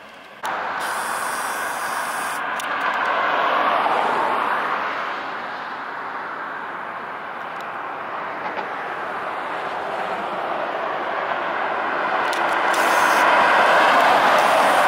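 Road traffic passing on a multi-lane road, tyre and engine noise. It swells as vehicles go by about four seconds in and again near the end.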